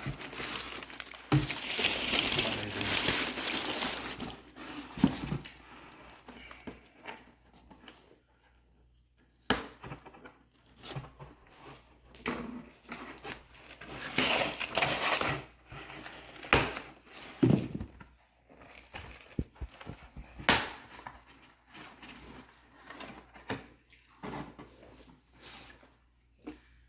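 Rustling and crinkling of packaging as model railroad roadbed is handled and unpacked by hand, with occasional sharp knocks and taps of pieces being set down, in irregular bursts with quieter pauses.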